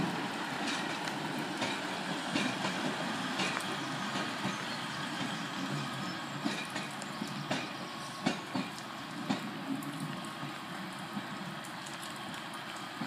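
Class 150 Sprinter diesel multiple unit running away along the line, its rumble fading steadily as it recedes, with scattered sharp clicks of the wheels over the rail joints.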